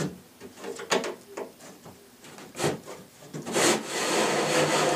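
Wooden cabinet back panel being pushed down by hand into its side channels. A few short knocks and scrapes, then from about three and a half seconds in a long, loud scrape of wood rubbing against wood as the panel slides down.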